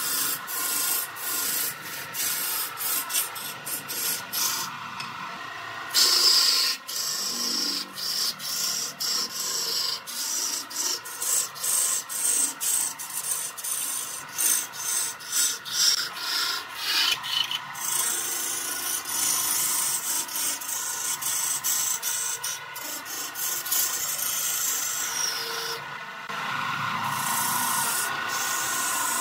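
Long-handled turning tool cutting into a wooden spindle spinning on a lathe: a continuous rasping scrape that pulses in loudness as the tool bites and eases off, throwing a stream of shavings.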